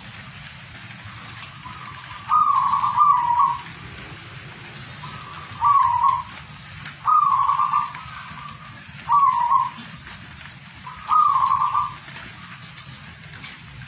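Caged zebra dove (perkutut) cooing: a run of short, rolling coo phrases, one every second or two, with two in quick succession about two seconds in.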